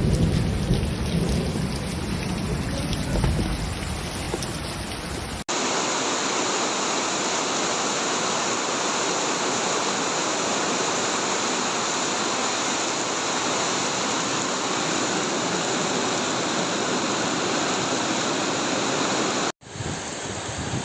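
Heavy rain in a downpour, with low rumbling under it for the first five seconds. After an abrupt cut the rain is a steady, even hiss, and another abrupt cut comes near the end.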